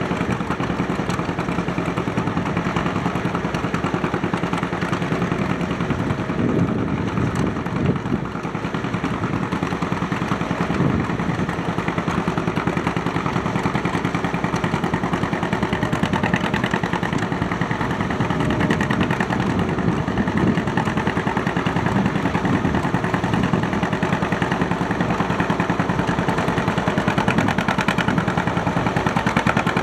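Antique farm tractor engine running steadily with a rapid, even firing beat, growing a little louder near the end.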